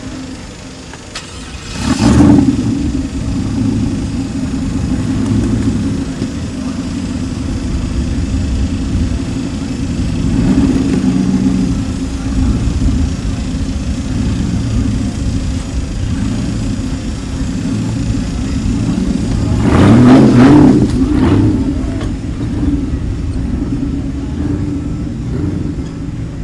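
Off-road competition truck's engine running under load and revving as it works the course, with two loud surges of revving: one about two seconds in, the other around twenty seconds in.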